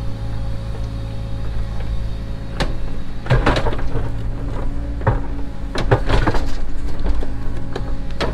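Cat 307 excavator's diesel engine running steadily, with repeated knocks and scraping clatter of stones and soil in the steel bucket starting about two and a half seconds in.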